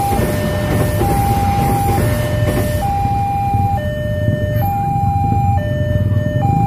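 Railway level-crossing warning alarm sounding: an electronic two-tone signal that alternates between a higher and a lower note a little faster than once a second. Under it runs a steady low rumble, and the hiss of the passing commuter train's wheels fades out about three seconds in as the last carriage clears the crossing.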